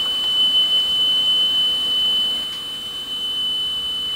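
Steady 3 kHz test tone from a test cassette, played on a Telefunken CR100 boom box's tape deck and heard through its speakers.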